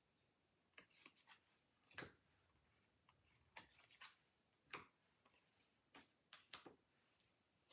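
Tarot cards being flipped through and set down one by one: faint, irregular taps and slaps of card stock, about one or two a second.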